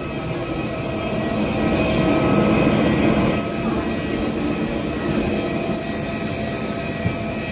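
Steady mechanical drone with a thin high whine from a parked airliner and its ground equipment at the cabin door, swelling over the first few seconds and easing a little toward the end.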